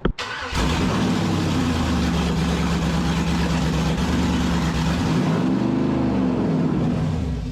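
LS-swapped 5.3-litre V8 running on its first start, steady at first. Its speed rises and falls once about five to six seconds in, and it dies near the end.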